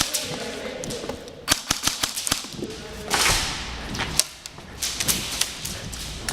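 Airsoft guns firing: sharp cracks in scattered single shots and short quick runs, irregularly spaced.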